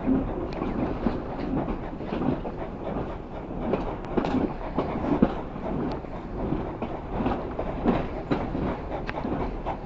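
A train running along the line, a steady rumbling noise with irregular clacks of the wheels on the track.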